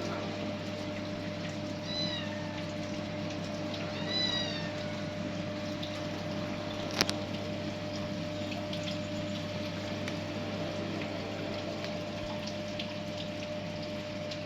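Kitten mewing: two short, high-pitched mews about two seconds apart, over a steady background hum. A single sharp click comes about seven seconds in.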